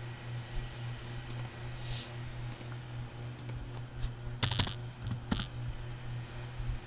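Computer keyboard keys clicking: scattered single keystrokes, with a quick flurry of several keys about four and a half seconds in, over a low steady hum.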